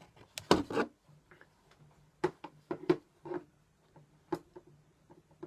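Handling noise from a camera being fiddled with: scattered light clicks and rubs, with a louder burst just under a second in.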